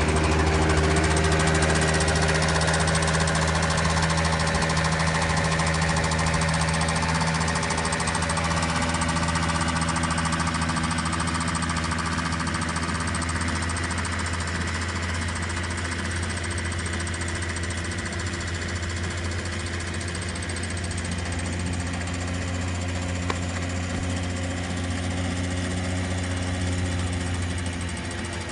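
Small engine of a student-built Shell eco-car running at a steady pitch as the car drives along, growing gradually fainter as it pulls away.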